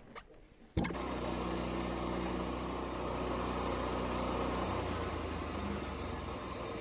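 Wood-Mizer LT15 Start sawmill's motor running steadily, coming in suddenly at full level about a second in after a few quiet clicks.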